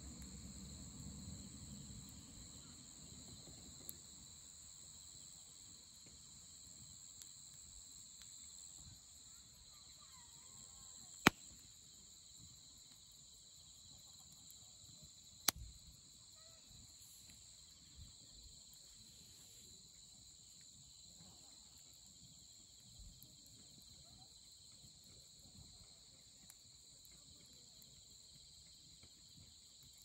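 Insects chirping steadily in a high, even drone around a burning wood fire. Twice, a third of the way in and again about halfway, the burning firewood pops sharply.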